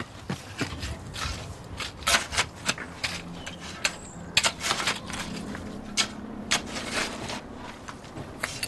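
Irregular scraping, knocking and rustling of garden work: a tool in soil, plant pots and foliage being handled while shrubs are planted. A faint steady hum runs under it through the middle.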